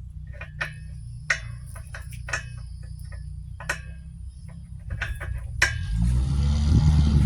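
Small sharp clicks and clinks of screws and metal hardware being handled, then about six seconds in a power drill starts, with a loud low drone as it drives a screw.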